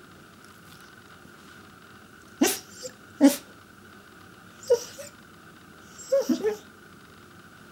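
Pembroke Welsh Corgi vocalising in short bark-like calls to get attention: two calls a second or so apart, a third a little later, then a quick run of three near the end.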